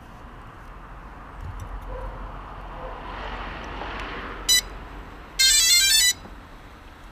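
A short electronic beep, then a quick electronic jingle of rapidly stepping tones lasting under a second, over a faint rushing background that swells and fades just before.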